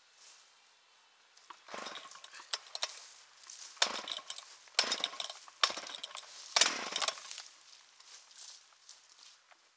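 A saw cutting into wood in a run of strokes about a second apart, each stroke starting sharply.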